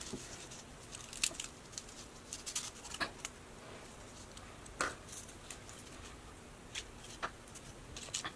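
Faint, scattered clicks and crackles of dry cinnamon stick pieces and bay leaves being dropped by a gloved hand onto a blender cup of chili sauce. The few sharpest clicks come about one, three and five seconds in.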